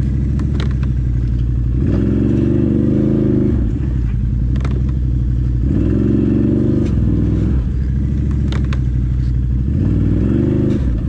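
Can-Am Outlander XMR 1000R ATV's V-twin engine running low, then revving up three times for a second or two each as it works through deep snow, with a few sharp clicks and knocks.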